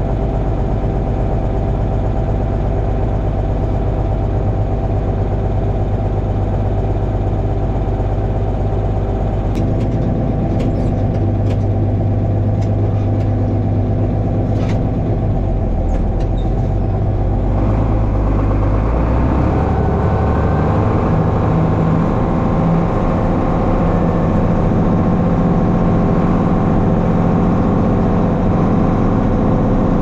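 Vehicle engine running steadily, with a few light clicks between about ten and sixteen seconds in. About eighteen seconds in the engine note shifts to a different pitch as the engine speed changes, then holds.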